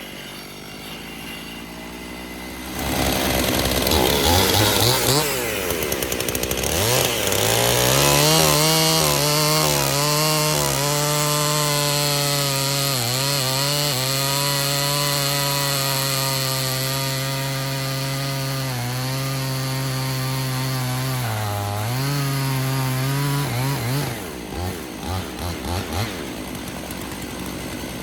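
Two-stroke chainsaw idling, then revved up to full throttle and held there through a long steady cut, its pitch dipping slightly now and then as the chain loads up, as in a rip cut along a log with an Alaskan chainsaw mill. Near the end the throttle is released, blipped a few times, and the saw drops back to idle.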